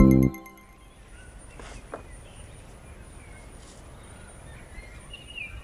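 The last notes of a marimba-like music track stop at the start, leaving faint outdoor ambience with birds calling now and then, one louder call near the end.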